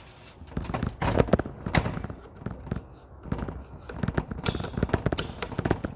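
Irregular clicks and knocks from an old WW2 power-takeoff-driven air compressor being rocked backwards and forwards by hand. It turns freely for part of the turn, then binds tight: something is stopping its full rotation.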